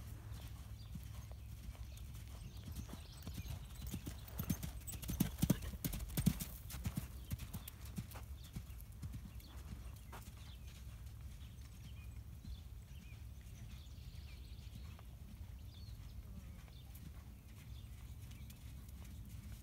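Hoofbeats of a Thoroughbred mare cantering on sand arena footing, loudest and closest from about four to seven seconds in, then fainter as she moves away.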